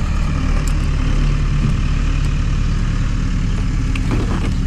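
Steady low mechanical hum, like an idling engine or motor, running evenly, with a few faint clicks over it.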